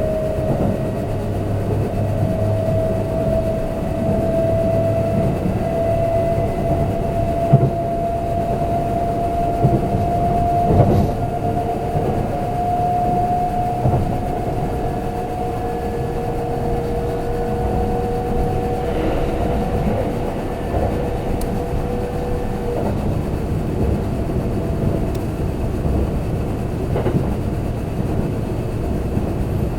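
Kintetsu limited express electric train running on the rails, heard from inside the passenger car: a steady rumble with a thin whine that rises slightly in pitch over the first half, and a few light knocks from the track.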